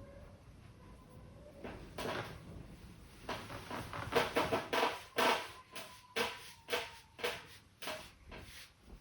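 A barber's hands working a head massage, a quick run of rubbing strokes on hair and scalp, about two to three a second, starting about two seconds in.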